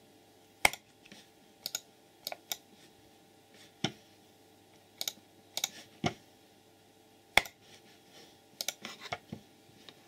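Computer mouse buttons clicking: about a dozen short, sharp clicks at irregular intervals, several of them in quick pairs.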